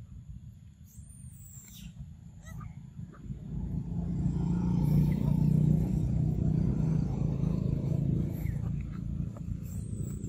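A motor vehicle's engine drone swells about three and a half seconds in, holds for several seconds and fades near the end. Faint high bird chirps come near the start.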